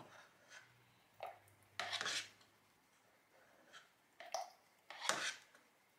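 A ladle knocking and scraping against a plastic bucket and jugs while raw soap batter is ladled out and poured. About half a dozen short, soft clatters, the longest a little after a second in and near the end.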